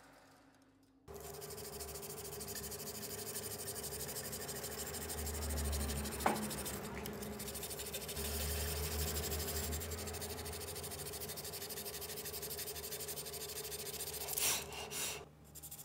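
Steady abrasive rubbing on walnut wood over a constant motor hum, with a single sharp click about six seconds in and a brief louder scrape near the end.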